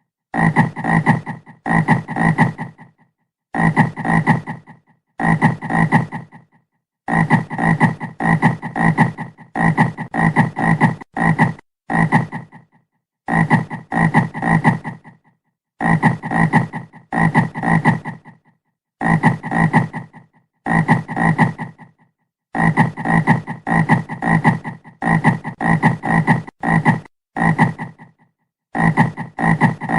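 Frog croaking in repeated calls about a second long, each a quick run of rattling pulses. The calls are separated by short gaps of dead silence.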